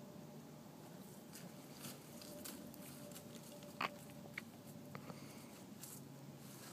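Quiet background with a faint steady hum, broken by scattered light clicks and crackles. The sharpest click comes about four seconds in.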